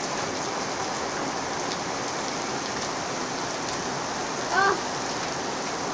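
Heavy downpour of rain falling steadily, a continuous even hiss of rain on surfaces.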